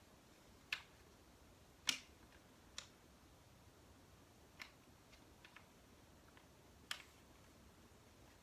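Sharp clicks and taps of small RC crawler chassis parts being handled and fitted together, with the rear skid plate going on: about six separate clicks with pauses between, the loudest about two seconds in.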